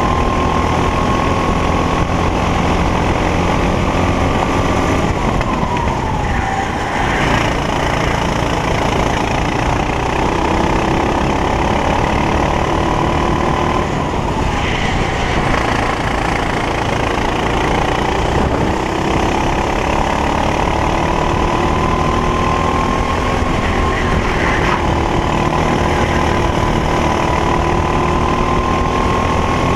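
Racing kart engine at race pace, its note climbing steadily as it accelerates, then dropping sharply under braking about five seconds in and climbing again, with a few smaller dips later for corners.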